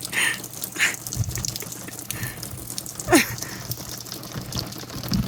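Rain falling and dripping, a steady patter of small drops and splashes. A short sound falling in pitch comes about three seconds in.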